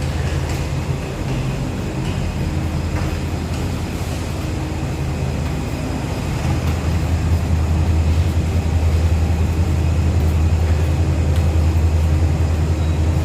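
A steady low mechanical hum, growing somewhat louder about halfway through.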